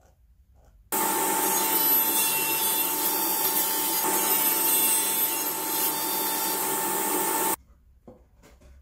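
Sliding-table panel saw running and cutting through a wooden board: a loud steady saw noise with one constant tone. It starts abruptly about a second in and stops abruptly near the end, with only faint handling sounds either side.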